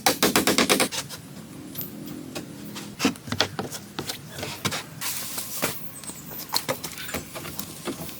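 A fast, even run of sharp knocks on wood, about eight a second, stops about a second in. Scattered lighter knocks and clicks of tool and timber handling follow.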